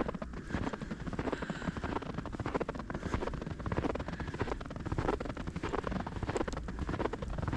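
Footsteps crunching in snow, a dense irregular crackle, over a steady low rumble of wind on the microphone.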